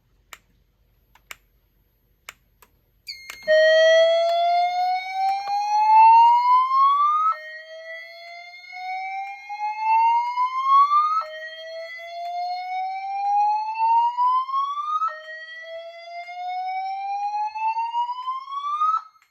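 EST3 whoop evacuation tone played through EST Genesis speaker strobes: four slow rising whoops, each about four seconds long, starting about three seconds in, with a faint steady high tone underneath. A few faint clicks come before it.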